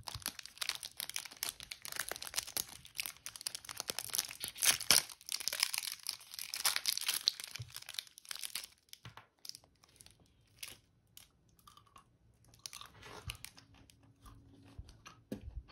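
Wrapper of a Snickers ice cream bar being torn open and crinkled for about eight seconds, then sparser crunching as the frozen chocolate coating is bitten and chewed.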